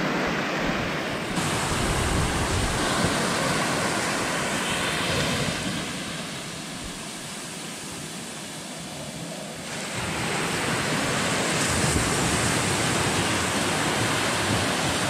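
Small surf washing on a sand beach, a steady hiss of low waves that grows quieter for a few seconds in the middle.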